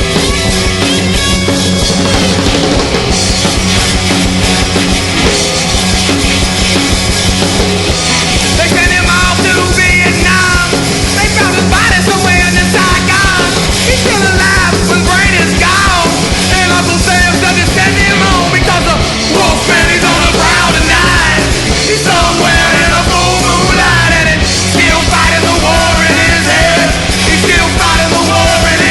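Loud punk rock song with dense, steady instrumentation; from about eight seconds in, a wavering vocal line sits on top.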